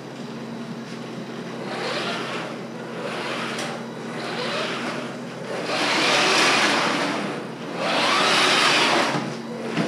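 Electric drive motors of a homemade four-wheel RC car whirring in repeated bursts as the wheels are driven back and forth, six bursts of different lengths, the two longest and loudest near the end. A steady low hum runs underneath.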